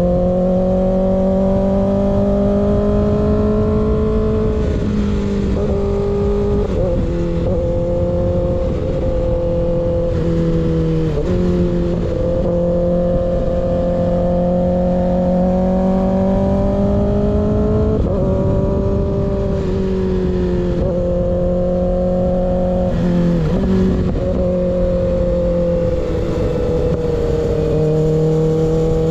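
Kawasaki ZX-6R inline-four engine running through an unbaffled M4 GP19 slip-on exhaust, riding along at steady mid revs. Its pitch climbs slowly and then drops briefly several times, over a steady rush of wind.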